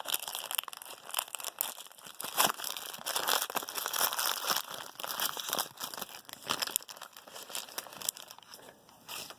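Foil card-pack wrapper crinkling and rustling as it is torn open and handled, with irregular crackles throughout that thin out near the end.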